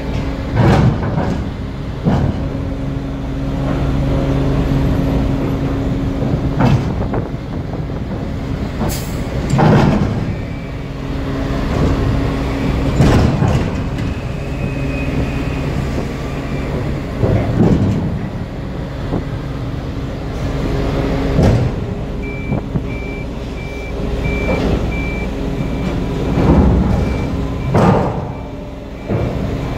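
Hydraulically driven steel hatch covers of a cargo ship closing. A steady hum from the hydraulic drive runs under repeated heavy clunks and bangs as the cover panels move and seat. From about two-thirds of the way in, a high electronic beep repeats about twice a second.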